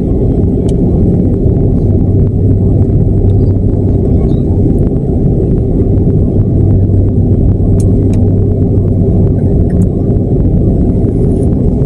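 Airliner jet engines at idle heard inside the passenger cabin: a steady low rumble with a constant hum.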